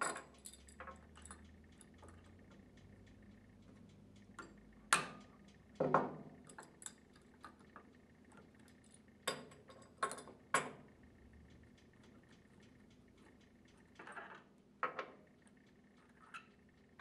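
Scattered light metallic clicks and taps of hand tools and small steel parts at a gear pump's shaft end, as a lock washer tang is bent up and the lock nut and lock washer are worked off the shaft, with tools set down on a wooden bench. The clicks come in clusters a third of the way in and just past halfway, with a few more near the end.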